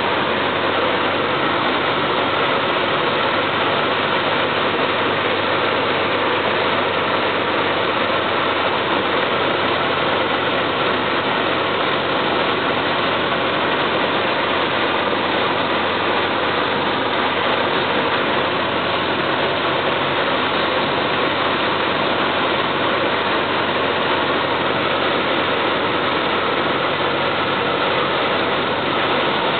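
Single-engine propeller plane's engine and propeller droning steadily in flight, heard inside the cockpit with air noise over the cabin.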